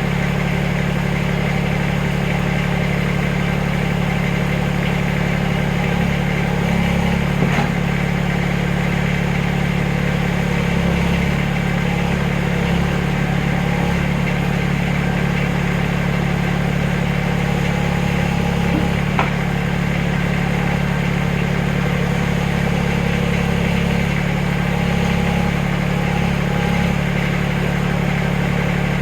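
Backhoe engine running steadily at a constant speed, with a couple of light knocks.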